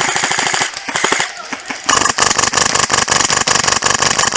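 Airsoft rifle firing on full auto: two short bursts, then a long, louder burst from about two seconds in.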